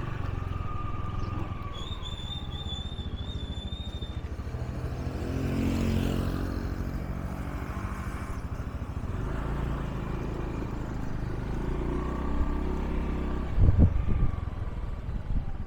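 Motorbike engine running as it is ridden, speeding up about six seconds in, with a few loud knocks near the end.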